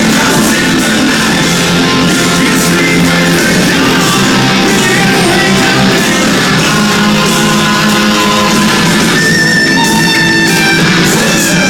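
Live hard rock band playing loud, with heavy electric guitars over the full band. About nine seconds in, the low end drops back and a thinner guitar part comes to the fore.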